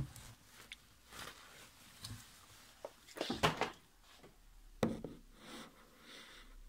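Costume dresses rustling as they are handled, with a few brief knocks and a louder cluster of rustling and clicks about three and a half seconds in.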